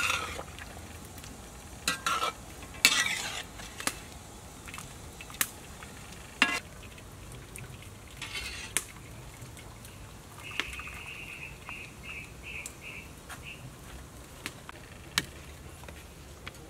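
A wire skimmer knocking and scraping against a metal wok as boiled vegetables and chilies are lifted out of the water, with a steady low bubbling and hiss underneath. A few loud knocks come in the first seven seconds, and about ten seconds in there is a short run of five or so high chirps.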